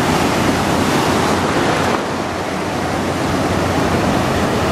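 Ocean surf breaking and washing in the shallows, a steady rush of white water.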